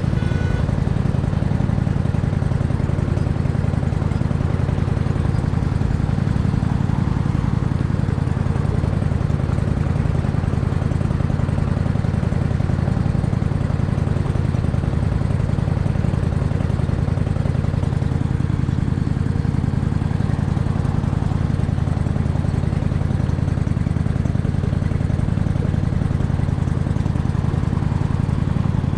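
Cruiser motorcycle engine running at a steady idle, an even low note with no revving.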